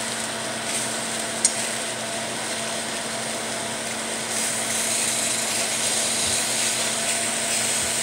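Sausages and pineapple rings sizzling in a hot frying pan, a steady frying hiss that grows louder about four seconds in. A single short click about a second and a half in.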